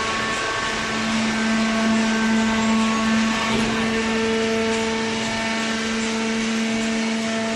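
Hydraulic cardboard baler running: the electric motor and hydraulic pump give a steady mechanical hum and whine, a little louder for a couple of seconds about a second in.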